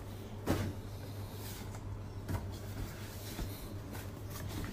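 A few soft knocks and handling noises over a steady low hum, as a plastic storage cube holding a cat is handled.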